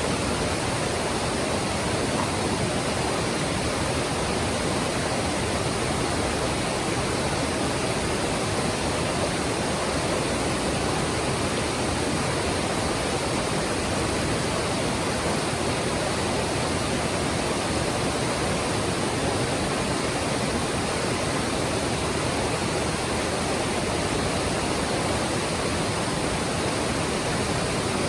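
Mountain stream rushing over rocks: a steady, even rush of flowing water that keeps up without change.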